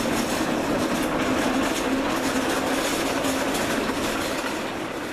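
Wheels of a homemade cart carrying a truck cab rolling and rattling as it is pushed, a steady clattering with a droning hum; it fades away near the end.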